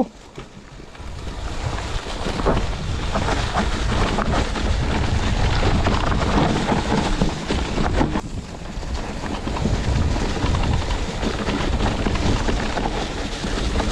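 Wind buffeting a chest-mounted action camera's microphone at speed, over the rumble and rattle of a mountain bike's tyres rolling down a leaf-covered dirt trail; it builds after the first second.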